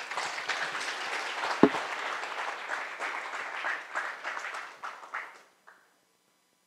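Audience applauding, dying away about five and a half seconds in, with a single sharp knock about a second and a half in.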